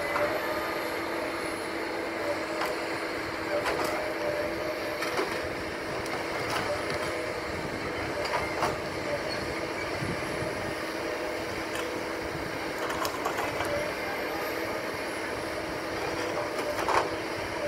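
Tracked forestry harvester's engine running with a steady hum, with scattered knocks and clanks as the boom and harvester head work; the loudest knock comes near the end.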